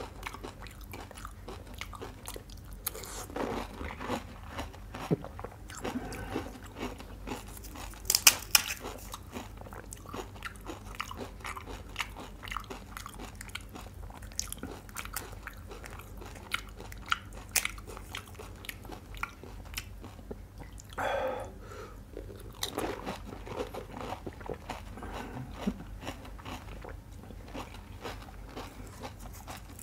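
Close-miked biting and chewing of pani puri: crisp, hollow fried puris crunching and cracking between the teeth, then wet chewing of the water-filled shells. Sharp crackles run throughout, with the loudest crunch about eight seconds in.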